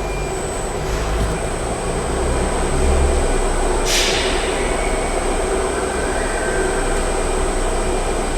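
Steady factory background noise: a continuous low rumble with a constant thin high whine, and a brief hiss about four seconds in.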